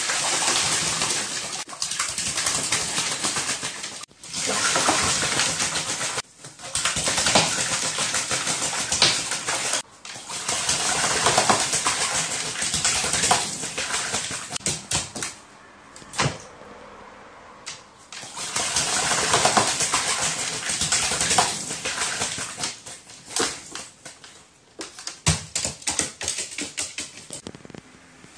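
A crow bathing in a plastic basin of water, beating its wings and dunking so that water splashes in bouts of a few seconds with short pauses between. Near the end the splashing thins to scattered separate splashes.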